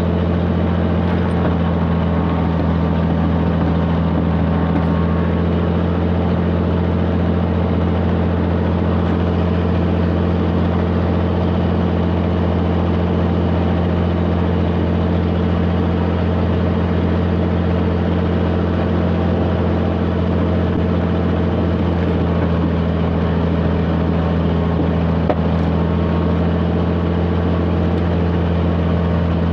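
A Cirrus SR22's six-cylinder Continental engine running steadily during a ground run-up, an even, unbroken drone. At this time the engine ran lean on cylinder #2 because of a missing fuel injector gasket, the cause of its knocking and rough running.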